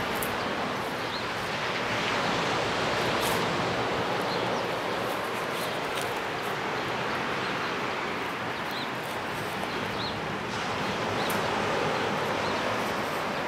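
Ocean surf breaking on the shore below, a steady rushing wash that swells gently a couple of times, with a few faint high chirps.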